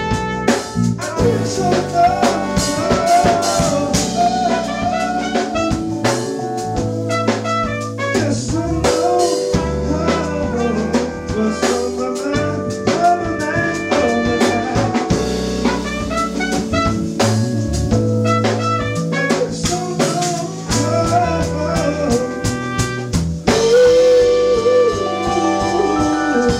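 A live band of drum kit, congas, keyboard, guitar and trumpet playing a slow soul-funk tune. About 23 seconds in the drums stop and the band holds a final chord, with one lead note wavering over it.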